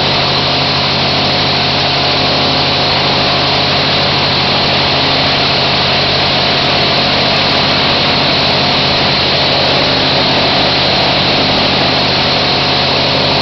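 Engine running steadily at a constant speed, a loud, even drone.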